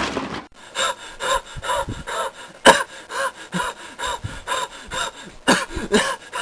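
A noisy crash dies away in the first half second. A voice then makes short breathy gasps in a steady rhythm, about three a second.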